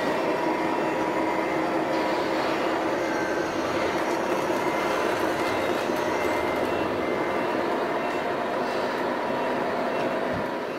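RC tipper truck's tipping mechanism running with a steady mechanical whine as the bed tips up and the load of sand slides out. It fades away near the end.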